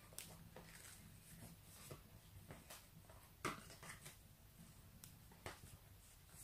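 Faint rustling and soft taps of a filled flour tortilla being folded and wrapped by hand on a plate, with one sharper tap about three and a half seconds in.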